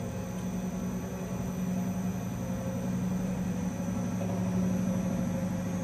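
The discharge screw drive of a sigma kneader-extruder, an electric motor and gear reducer, runs with a steady hum that grows slowly louder as its inverter speed is turned up. The screw is turning forward, in the discharging direction.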